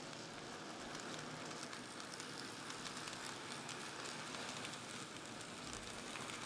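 N scale model coal train rolling past on its track: a steady rattling run of the hopper cars' small wheels, with many quick ticks.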